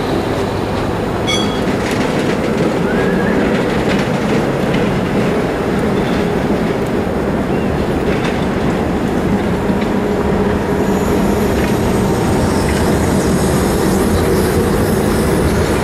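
Two articulated trams rolling past close by on street track: a steady rumble of steel wheels on rail, with a few brief, faint squeals and clicks.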